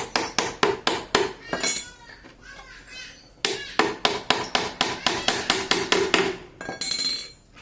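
Hammer striking nails in quick, even blows about five a second, with a slight metallic ring, in two runs separated by a pause of about two seconds. A short scraping noise follows near the end.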